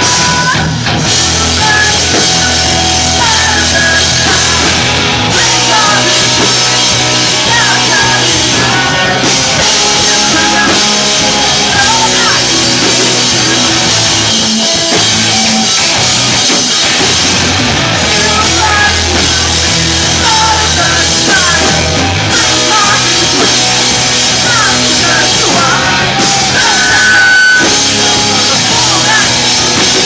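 Live rock band playing loudly: distorted electric guitars, bass and a drum kit, heard from within the crowd.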